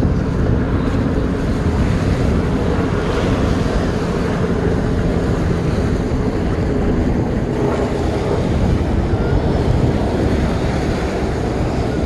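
Wind rumbling on the microphone over the steady wash of small surf breaking on the beach.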